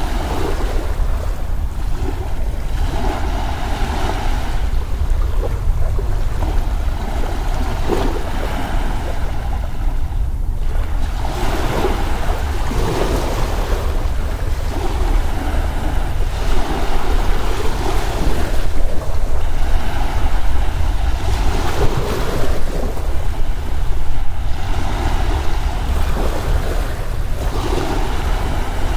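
Ocean waves washing in slow swells every few seconds over a steady low wind rumble.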